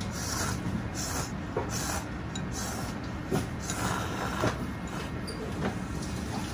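Ramen noodles being slurped in about three short hissing pulls near the start, with a few light clicks later, over a steady low kitchen rumble.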